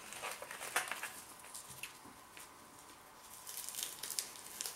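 Faint, irregular crackling and rustling of crispy seaweed thins being handled in the fingers, a few sharp clicks in the first second and denser crackling near the end.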